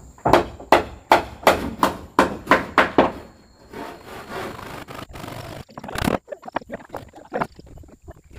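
Carpentry on wooden boards: quick even strokes on wood, about three a second, for the first three seconds, then a stretch of rough scraping, a single loud knock about six seconds in, and a few lighter knocks after it.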